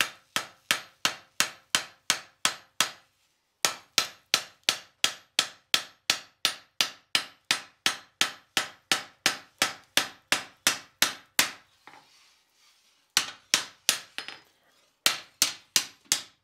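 Hand hammer striking a red-hot flat steel bar on an anvil in steady blows, about three a second, forging a bevel along the bar's edge. The blows stop briefly about three seconds in, pause for a second or two about eleven seconds in, then resume in short runs.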